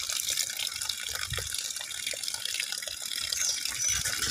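Wet, watery rubbing as a rooster's soapy feathers are scrubbed by hand, a steady splashy hiss with a few soft low bumps.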